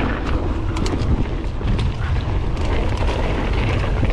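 Wind rushing over a GoPro's microphone as a Kona Process 153 mountain bike rolls fast down a dirt trail, with steady tyre rumble and frequent sharp clicks and rattles from the bike over bumps.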